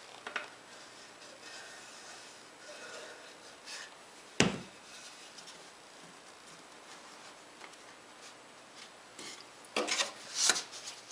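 Plywood drawer parts handled and fitted together on a wooden workbench: quiet wood-on-wood rubbing and light knocks, one sharp knock about four seconds in, and a few more knocks near the end.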